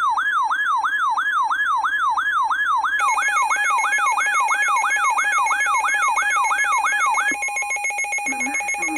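Electronic siren in a fast yelp, its pitch sweeping up and down about two and a half times a second. About three seconds in it is joined by a steady electronic alert tone. The sweep stops about seven seconds in, while the steady tone carries on with a low pulsing sound under it near the end.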